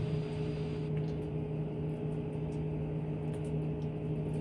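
A steady machine hum holding two low tones, with faint soft scrapes and ticks from a metal spoon spreading vegetable-and-yogurt filling over buttered bread.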